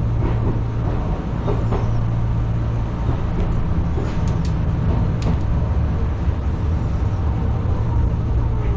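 Enshu Railway electric train heard from inside the cab as it brakes into a station: a steady low hum from the running gear and motors, with a few short sharp clicks about four to five seconds in.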